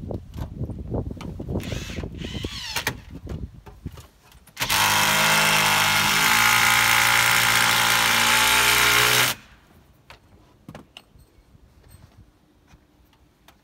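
A power drill runs steadily for about four and a half seconds and cuts off suddenly. Before it come scattered knocks and rustling.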